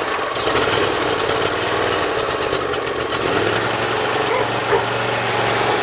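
Briggs & Stratton Intek V-twin engine, just caught on a cold start with the choke fully on, running steadily.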